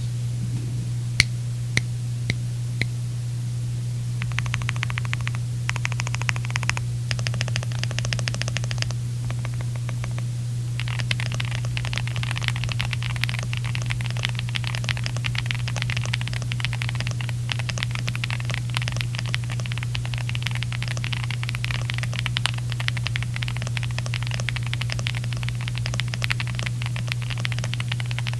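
Akko SPR67 mechanical keyboard with lubed Strawberry Milk tactile switches, tape-modded and foam-filled, being typed on: a few single key presses, then short runs of rapid keystrokes, then steady fast typing through the rest. A steady low hum runs underneath.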